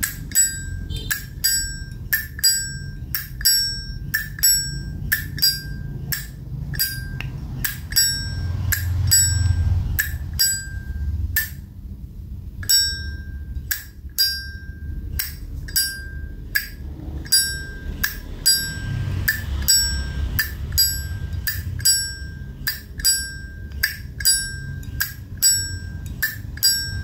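Zippo lighter lid being flipped open and snapped shut over and over, each flick giving a sharp click and a short metallic ping, about one to two a second with a brief pause midway.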